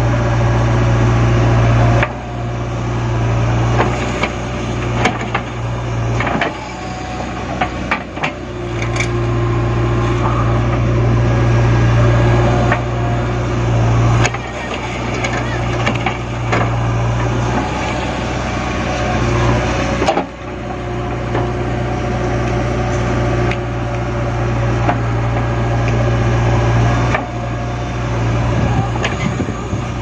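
JCB 3DX backhoe loader's diesel engine running steadily under load as the backhoe digs and dumps soil, with scattered knocks and clanks from the bucket and arm.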